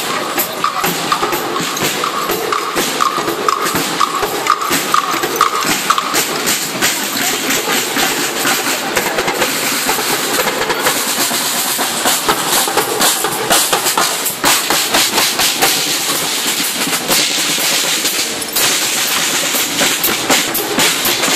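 A marching majorette band's drums playing a cadence, with rapid strokes from the snare and bass drums. A high tone pulses along with the beat for roughly the first six seconds.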